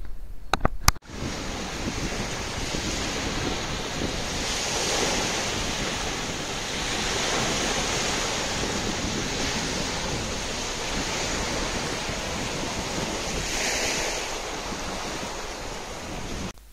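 Sea surf and wind on a beach: a steady rushing noise that swells and eases slowly, with wind buffeting the microphone. A few short clicks come about a second in.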